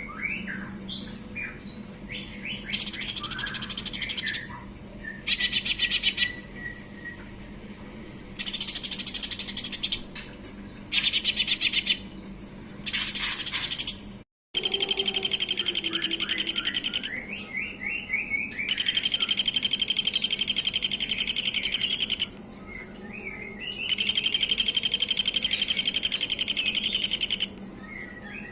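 A green leafbird (cucak ijo) and a spiderhunter (pijantung) singing. Dense, very rapid high trills in stretches of one to three seconds alternate with quick runs of short downslurred whistles, over a steady low hum.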